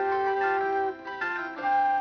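Instrumental cartoon score music: a phrase of held notes that thins out briefly about a second in, then picks up with new held notes.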